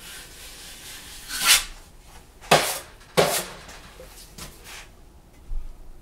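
Metal drywall taping knife scraping joint compound across the wall, then two sharp knocks about half a second apart in the middle, with a few lighter taps near the end.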